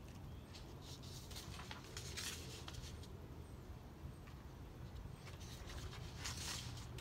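Sheets of paper rustling as handheld signs are shuffled and one is pulled from the stack: a few brief rustles, the loudest near the end, over a faint low steady rumble.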